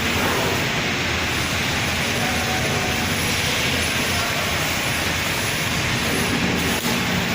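Steady industrial noise from a panel welding machine running: a continuous even hiss over a low hum, with a single click near the end.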